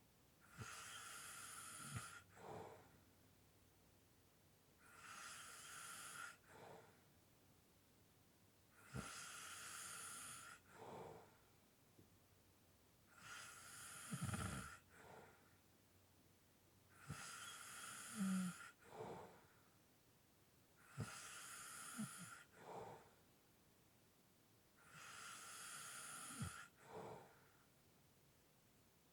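A sleeping person snoring lightly: slow, regular breaths about every four seconds, seven in all, with quiet gaps between them.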